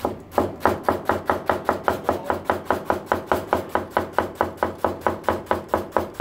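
A chef's knife finely shredding cabbage on a plastic cutting board: the blade chops through the leaves and knocks the board in a steady, even rhythm of about four strokes a second.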